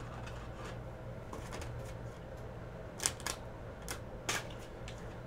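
A few sharp clicks and light taps of small handling noise, the clearest about three and four seconds in, over a low steady hum.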